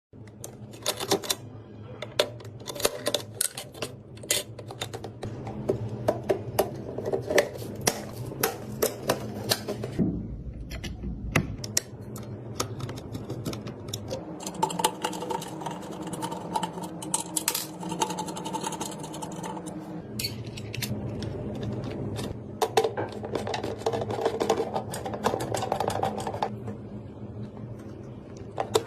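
Irregular clicks and taps of hard parts being handled and fitted during a PC build, with steady tones underneath for long stretches.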